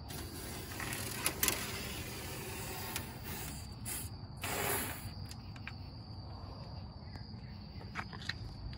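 Aerosol can of Fluid Film rust inhibitor spraying through a thin extension wand into a pickup truck's door cavity: a hiss for about three and a half seconds, then a second, shorter hiss about four and a half seconds in.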